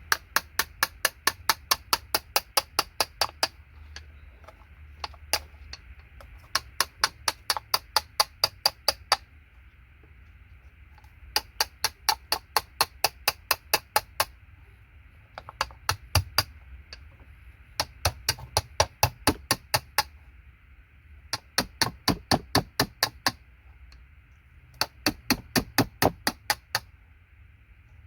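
Quick regular taps, about five a second, in runs of two to four seconds with short pauses between: a hand tool working gold-plated connectors and pins off scrap circuit boards.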